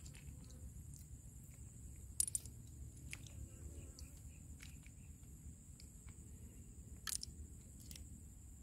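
Small freshwater clam shells clicking and clinking as they are picked from the pile and pried open by hand: faint scattered clicks, with two sharper ones about two seconds in and near the end, over a low rumble.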